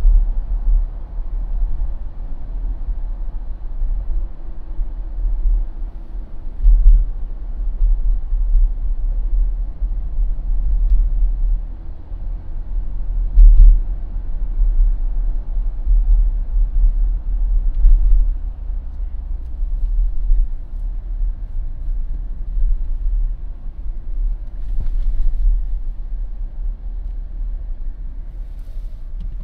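A Jeep driving along a road, with a steady low rumble of engine and tyres. There are two brief louder thumps, about a quarter of the way in and again near the middle.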